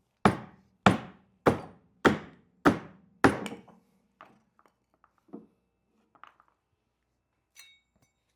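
Six heavy blows on a wooden chock, about two every second, knocking it loose from the pallet, then a few lighter knocks and taps.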